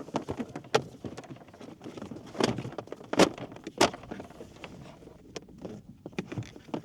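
Folding plastic hull and seat section of an ORU Lake kayak being handled as the seat is slotted in at the bottom: scattered knocks, clicks and scuffs of plastic, the three loudest a little past the middle.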